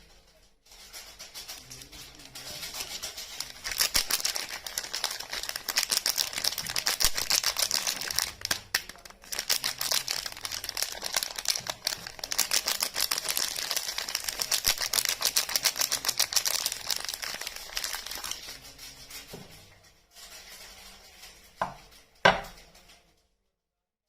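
Wrapping being unwrapped from a bar of soap, with a long run of rapid crinkling and tearing. Two sharp knocks come near the end, then it stops suddenly.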